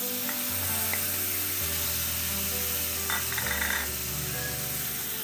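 Marinated chicken pieces sizzling in hot oil in a pressure cooker pot, a steady hiss, under soft background music.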